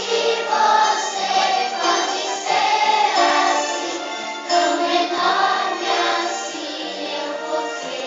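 A group of young children singing a Christmas song together over musical accompaniment.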